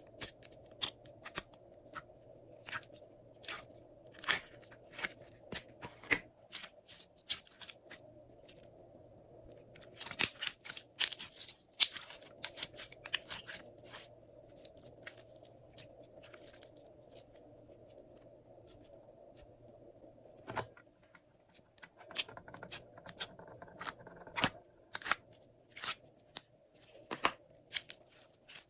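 Glossy slime being worked by hand, giving off sharp, irregular clicks, pops and crackles. They come thickest about ten seconds in, thin out for a stretch in the middle, and pick up again near the end.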